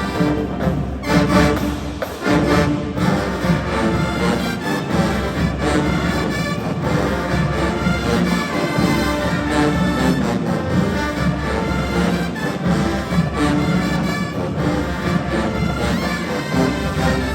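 Marching band brass and drums playing loudly and continuously.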